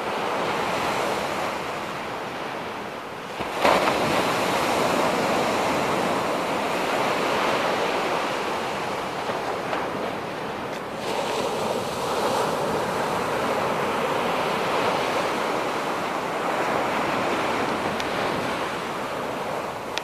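Surf washing onto a sandy beach: a steady rush of waves, with wind blowing on the microphone. The rush swells suddenly about three and a half seconds in.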